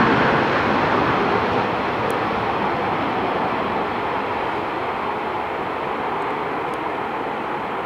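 Jet roar from T-38 Talon trainers' twin turbojet engines as a formation takes off, a steady rushing roar that slowly fades.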